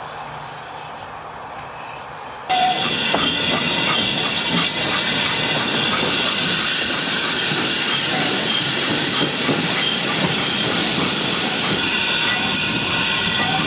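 Steam locomotive running: faint and distant for the first couple of seconds, then suddenly loud and close from on the engine, with steam hissing, a steady rhythmic beat and the clatter of wheels on rail joints.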